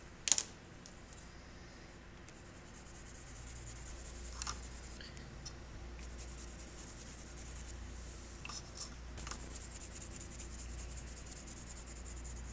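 A sharp click just after the start, then a pencil scratching steadily on paper as the sweater is colored in, with a few small taps along the way.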